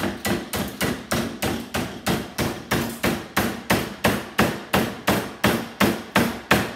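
A hammer repeatedly striking a small copper-wound microwave motor clamped in a steel bench vise, in even, rapid blows about three a second, to knock the stubborn copper winding out of its housing.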